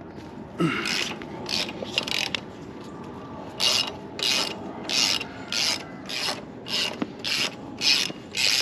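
Hand ratchet wrench on a long extension being swung back and forth to turn a bolt, its pawl clicking in short bursts on each back-stroke. The bursts start about half a second in and settle into a steady rhythm of about one and a half strokes a second.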